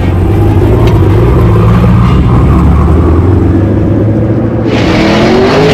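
Twin-turbo LT2 V8 of a C8 Corvette running at low revs through its titanium cat-back exhaust, a deep steady rumble. Near the end the revs climb and a loud hiss comes in with them.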